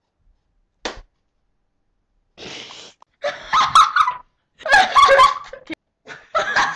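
One short knock about a second in, then a breathy gasp, followed by a girl's high-pitched laughter in several loud bursts.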